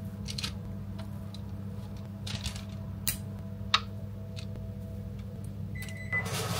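Light, scattered clicks and taps as a metal cookie scoop drops dough onto a parchment-lined baking tray and white chocolate pieces are set onto the dough balls, over a steady low hum.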